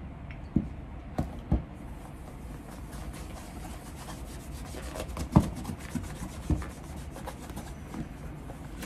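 A cloth rubbing over a Gaziano & Girling punched cap-toe shoe in quick strokes, working in and wiping off liquid cleaner to strip the old factory cream and wax from the new leather. A few sharper knocks come through between the strokes.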